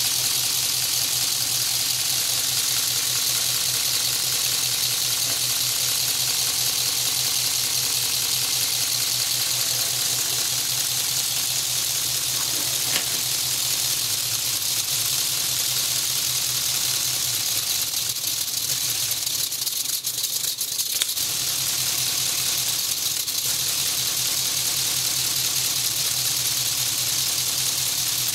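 Lego inline-12 pneumatic engine with a scotch-yoke crank running on compressed air: a steady hiss of exhausting air over a fast, even rattle of the plastic pistons and crank. Around two-thirds of the way through, the rattle briefly weakens, then picks up again.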